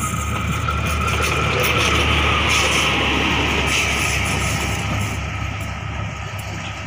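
A Plasser & Theurer track maintenance machine passing close by on the rails: its diesel engine hums steadily under wheel-on-rail noise. The sound swells to its loudest about two to three seconds in, then fades as the machine moves away.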